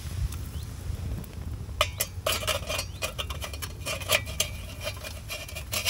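Metal hobo stove clinking and rattling as it is set down over a burning campfire-in-a-can: a quick run of light metallic taps with a short ring, starting about two seconds in.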